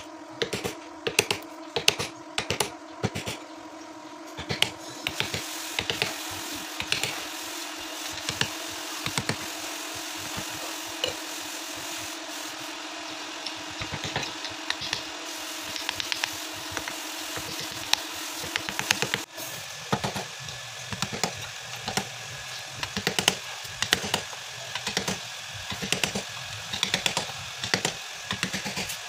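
Hammer striking a chisel cutting into a block of ebony held in a bench vise: sharp, repeated taps at about two to three a second. A steady low hum underneath stops suddenly about two-thirds of the way in, and the tapping goes on.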